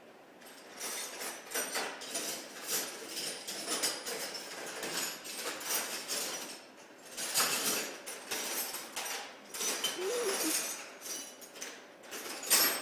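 Metal hand wrenches clinking and clattering against one another as they are rummaged through, an irregular run of rattles and clanks with the loudest clank near the end.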